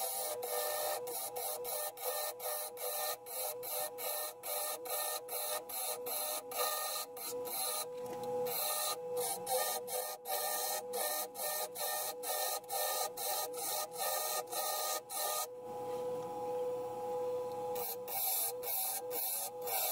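Wood lathe running with a steady motor whine while a turning tool cuts beads into the spinning wooden goblet stem, a scraping hiss in quick strokes about two or three a second. The cutting stops for a couple of seconds near the end, leaving only the lathe's hum, then starts again.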